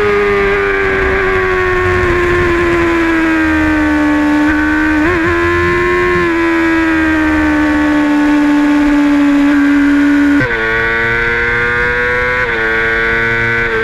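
Sport motorcycle engine heard on board at high revs. Its pitch sags slowly for about ten seconds, then jumps up sharply and keeps stepping a little near the end.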